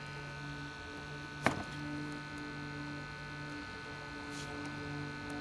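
Low mains hum from a vintage tube radio-phonograph, powered up, wavering in and out, with one sharp click about a second and a half in.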